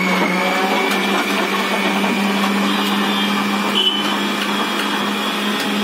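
Electric countertop blender running steadily, blending a shake in its jar, with a steady whirring hum.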